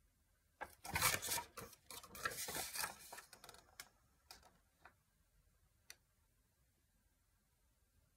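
A folded paper instruction leaflet rustling and crackling as it is turned over and spread out by hand, for about two and a half seconds, followed by a few faint clicks as it settles.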